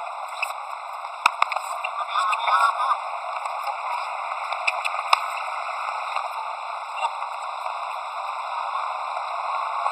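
Outdoor ball-game ambience: a steady background hiss with faint distant shouts, and a couple of sharp knocks of a football being kicked, one about a second in and another around five seconds in.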